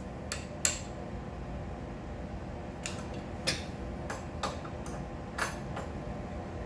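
A wrench working the nut on a mini bike's lower triple clamp: about eight short, sharp metallic clicks at uneven intervals as the nut is snugged down.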